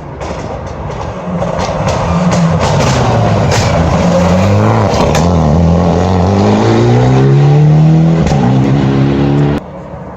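Rally car's engine coming into a hairpin, with several sharp cracks as it slows and the engine note dropping, then accelerating out with the revs climbing steadily. The sound cuts off abruptly near the end.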